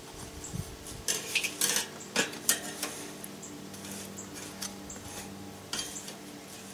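Metal spatula clinking and scraping against the steel cooking grate of a charcoal kettle grill as calzones are slid onto it and flipped. There are a handful of sharp clinks, most of them in the first three seconds and one more near the end.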